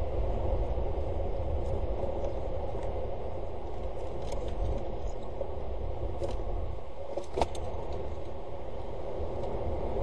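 Steady wind and rain rumble and hiss on an outdoor webcam microphone, with a few sharp ticks of raindrops hitting the camera; the loudest tick comes about seven seconds in.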